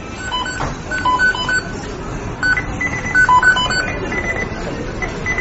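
McDonald's kitchen beeping sound effect: many short electronic timer beeps at several different pitches, overlapping in an irregular, busy pattern over a steady background noise.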